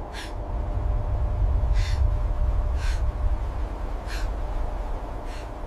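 A woman's heavy, gasping breaths, five of them about a second apart, over a steady low rumble.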